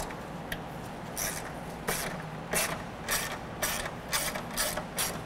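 Ratchet wrench with a 10 mm socket and extension clicking in repeated strokes, about two a second, as it loosens the hood latch bolts.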